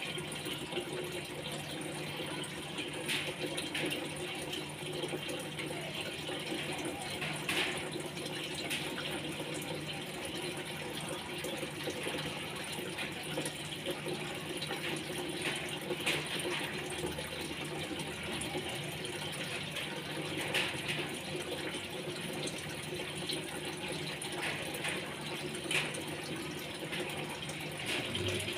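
Aquarium water trickling and circulating steadily over a low, steady pump hum, with a few faint clicks.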